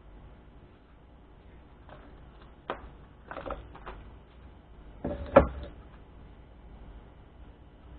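A few small clicks and knocks from parts being handled, with a sharp one about three seconds in, a short cluster just after, and the loudest knocks a little past five seconds.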